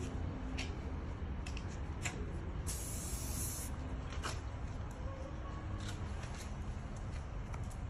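A spray can hisses once for about a second, about three seconds in, during hair and makeup touch-ups. Under it run a steady low rumble and a few faint clicks.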